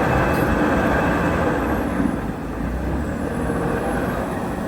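Engine of a loader (construction vehicle) running, a steady low rumble with a hiss over it.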